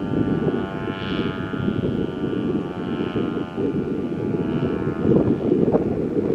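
American Signal T-128 electromechanical warning siren sounding a steady tone that swells and fades about every couple of seconds as the rotating head turns, fading overall. Wind buffeting the microphone is loudest, a heavy low rumble over the siren.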